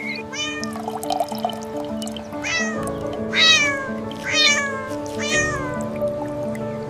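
A kitten meowing five times in short, high calls that fall in pitch, the loudest in the middle, over steady background music.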